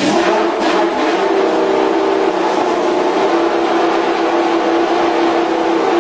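Ferrari engine running at a steady fast idle just after a cold start, its pitch easing down slightly about two seconds in.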